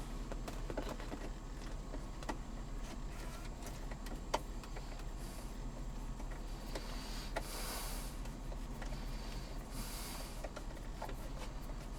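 Faint clicks and scrapes of hand work on plastic console trim while a screw is driven in, with one sharper tick about four seconds in and a few brief scraping rubs later on.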